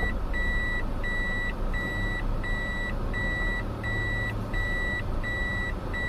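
A car's reverse warning beeper sounding a steady series of identical high beeps, about one every 0.7 seconds, over the low hum of the car: the sign that the car is in reverse gear.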